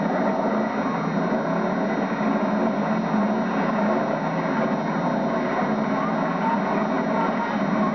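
Demolition derby car engines running, a steady low mechanical noise with no sharp crash, on a muffled, low-quality VHS recording.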